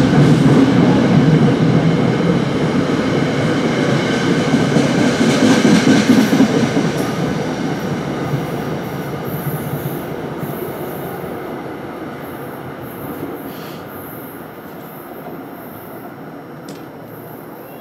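New Jersey Transit multilevel commuter train passing on the rails, its wheel and rolling noise loud at first and fading steadily over about ten seconds as it moves away.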